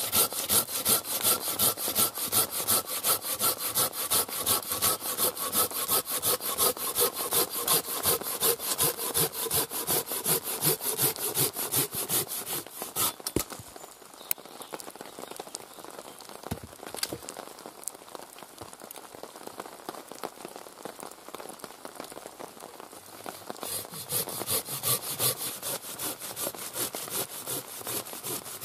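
Silky Zubat curved pruning saw cutting through a log with fast, even, rhythmic strokes. About halfway through the sawing stops for roughly ten seconds, leaving only a few knocks, then the strokes start again near the end.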